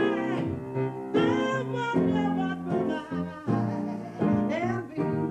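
A woman singing a song in phrases with grand piano accompaniment.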